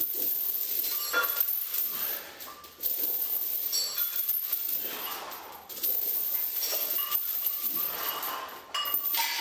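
Metal gym weights clinking and clanking during repetitions, four times about three seconds apart, each starting sharply and ringing briefly as it fades.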